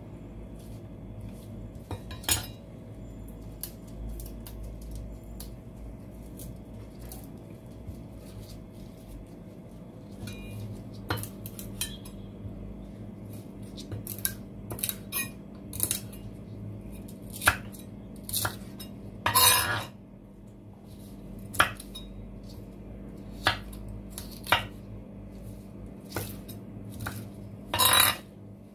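Chef's knife chopping celery leaves and stems on a wooden cutting board: irregular sharp knocks of the blade on the board, with two longer, louder sounds about two-thirds of the way through and near the end.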